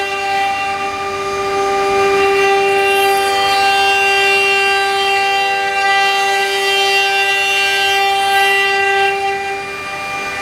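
The spindle of a CNC lathe-engraving machine whines at a steady, high pitch while it runs, cutting a workpiece held on the rotary axis. Faint hiss from the cutting rises about three seconds in and again near the end.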